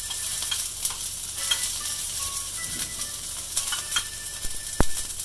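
Mustard seeds and curry leaves sizzling in hot mustard oil in a frying pan as a spoon stirs and scrapes them, with scattered crackles and one sharp click near the end: a tadka (tempering) being fried.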